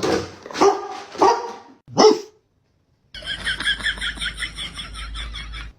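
A dog barking a few times. After a cut, a rapid run of short, high-pitched calls, about five a second.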